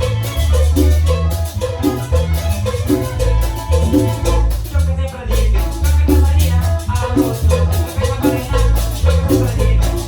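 Live cumbia band playing with violins, over a steady bass line and a regular percussion beat.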